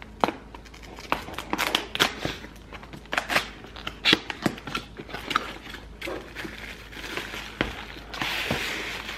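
Cardboard box being pulled open by hand: irregular crackles, tearing and flap snaps of cardboard and tape, with a steadier rustle near the end.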